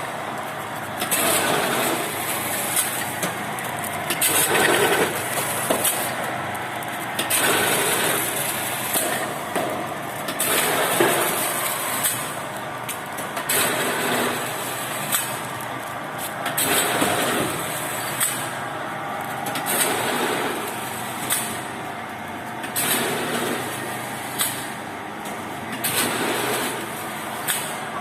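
Flour packing machine running through its cycle, a steady mechanical clatter with a short hiss repeating about every second and a half.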